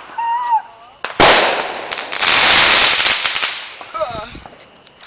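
A firecracker goes off with a sudden loud bang about a second in. A loud noisy stretch with sharp pops follows a second later. Short shouts come before and after.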